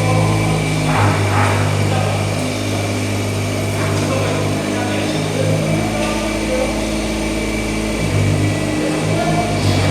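Mini excavator's diesel engine running steadily, its note stepping up and down a few times as it works.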